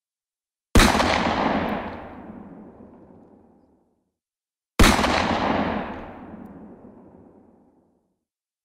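Two heavy gun blasts about four seconds apart, each a sharp bang that trails off in a long fading rumble: an added sound effect of big guns firing.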